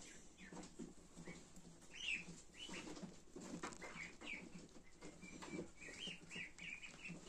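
Faint, scattered peeping of a brood of ducklings huddled together, in many short high calls.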